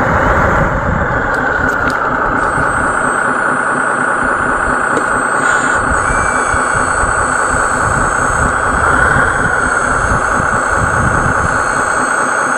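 Steady engine idling sound, like a truck engine running at idle.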